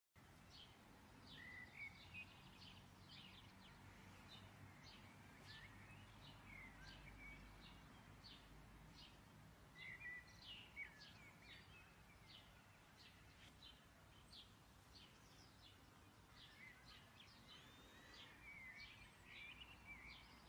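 Near silence, with scattered faint bird chirps and short twitters in the background.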